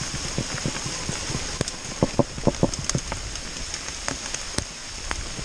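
Heavy rain falling, with many close drops striking as sharp ticks over a steady hiss; a run of louder hits comes about two seconds in.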